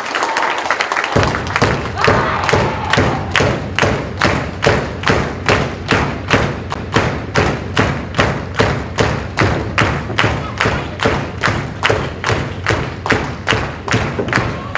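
Wrestling audience clapping in unison, a steady beat of about two to three claps a second that starts suddenly about a second in.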